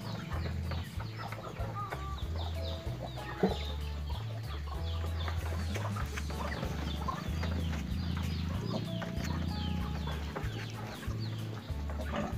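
Chickens clucking and chicks peeping: many short, high, falling peeps, several a second, over a low hum that pulses on and off.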